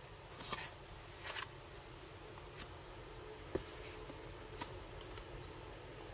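Light handling of paper cards: two brief rustles about half a second and a second and a quarter in, then a few faint taps with one sharper click in the middle, over low hiss.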